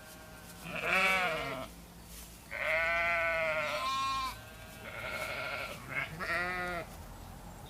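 Sheep bleating, about four separate baas with quiet gaps between them. The longest and loudest comes about halfway through.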